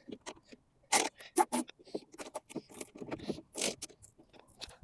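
Irregular plastic clicks and short scrapes from a car door's wiring loom and its plastic connectors being handled and fed into place inside the door, the loudest about a second in and again a little before four seconds.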